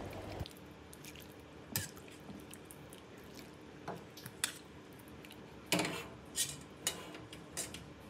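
Faint room tone broken by about seven short, sharp clicks or taps spaced irregularly, the loudest about two-thirds of the way through.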